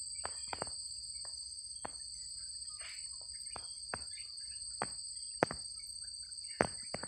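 Insects droning steadily in two high-pitched tones, with irregular sharp clicks scattered through; two clicks in the second half are the loudest.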